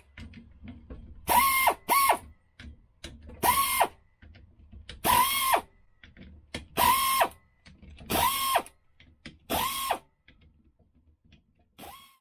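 Power driver with a 12 mm socket spinning out the case bolts of a Tuff Torq K46 transaxle. It makes about seven short runs, each whirring up and back down in pitch, with small clicks between them.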